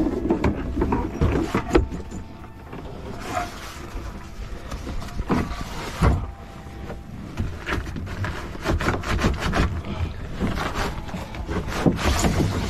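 A kayak being handled and moved at the water's edge: irregular knocks and scraping, with wind buffeting the microphone.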